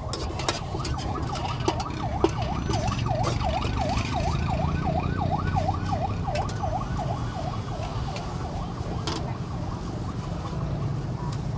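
A siren wailing in fast up-and-down sweeps, about three a second, growing louder toward the middle and fading near the end, over a steady low street rumble. A few sharp clatters sound in the first couple of seconds.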